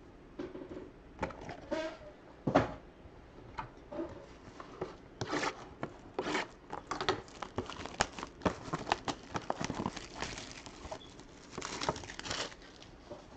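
Trading-card packaging being torn open and crinkled by hand: irregular rips and rustles of plastic or foil wrapping, the sharpest about two and a half seconds in.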